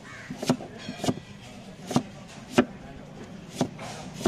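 Kitchen knife slicing a red onion on a small wooden cutting board: about six sharp chops, the blade going through the onion and striking the board at an irregular pace, roughly one every half second to a second.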